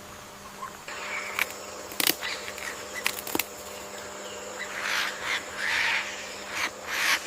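Rainforest ambience: a steady insect drone, with a few sharp clicks about a second and a half to three and a half seconds in and rustling or scratching that grows busier toward the end.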